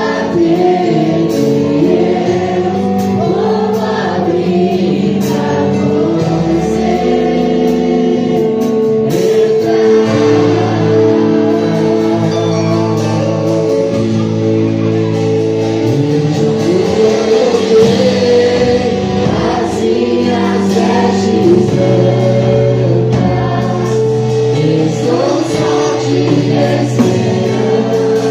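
Gospel worship music: a group of voices singing over a band's sustained chords.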